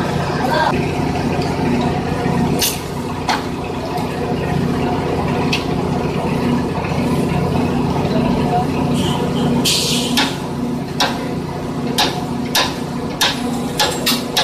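Electric pipe threading machine running with a steady motor hum, cutting oil splashing over the die head. From about ten seconds in, a few sharp metal clicks and knocks.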